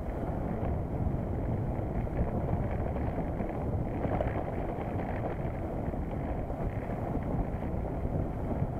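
Wind buffeting the microphone over the rumble and crackle of mountain-bike tyres rolling fast downhill on a loose gravel road, a steady noise with no breaks.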